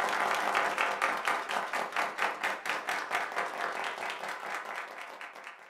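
Audience applauding, a dense patter of many hands clapping that fades away over the last second or two.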